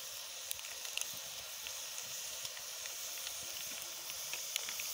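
Pork pieces and pig's blood frying in a pot over a wood fire: a steady sizzling hiss with scattered sharp crackles.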